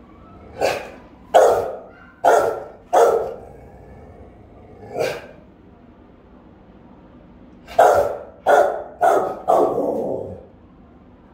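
Adult Rottweiler barking loudly in short, spaced barks. There are four in quick succession, a single bark a couple of seconds later, then a fast run of four near the end, the last one drawn out.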